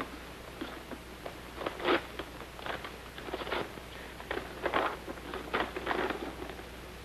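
A paper letter rustling and crackling in irregular short bursts as it is handled and unfolded, over a steady low hum.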